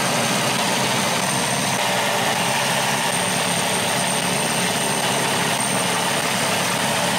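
Rotary hammer driving a 4-1/4 inch hole saw into brick, running continuously in a steady, dense hammering grind with a thin high whine above it.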